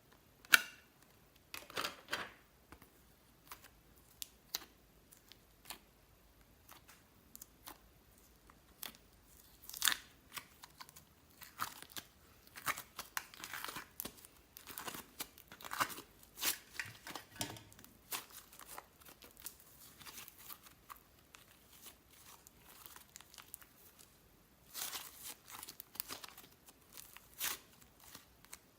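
Slime being squished, stretched and folded by hand, giving irregular sticky crackles and sharp clicks, some in quick clusters.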